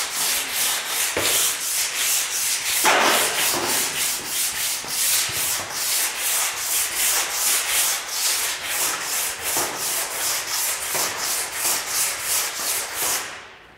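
Coarse body file on a timber handle rasping across a bare steel car bonnet, in even back-and-forth strokes about three a second that stop near the end. It is being run lightly over the panel so that its scratch marks show up high and low spots.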